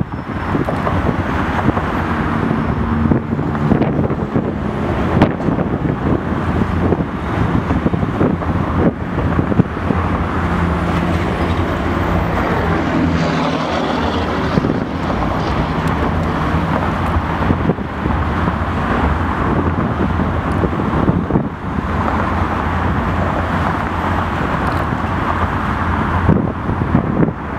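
Steady rumble of distant vehicles with a faint low hum, and wind on the microphone.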